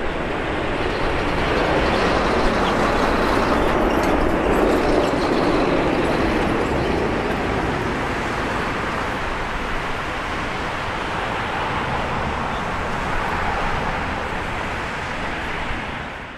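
Jet engine roar of a Boeing 787-8 rolling out on the runway after landing. The noise swells a few seconds in, then gradually fades as the airliner slows and moves away.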